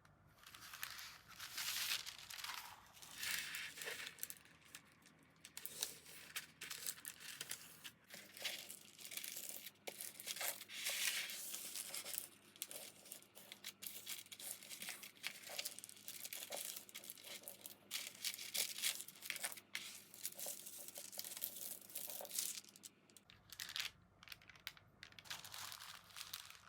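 Crinkly packaging material handled in irregular bursts, crinkling and rustling with short tearing sounds. It starts about a second in and dies away just before the end.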